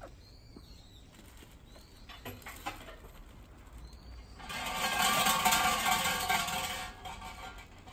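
A large brass shrine bell (suzu) shaken by its rope, which sets off a loud, jangling metallic rattle. It starts about four and a half seconds in and lasts about two and a half seconds. The bell is rung to call the deity before praying.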